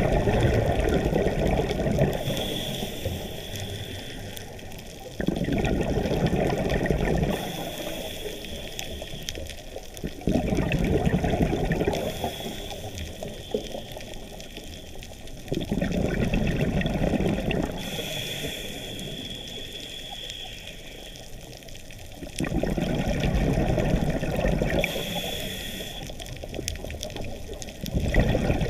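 Scuba diver breathing through a regulator underwater. Each inhalation is a hiss, and each exhalation is a burst of bubbles lasting about two seconds. The cycle repeats roughly every five seconds.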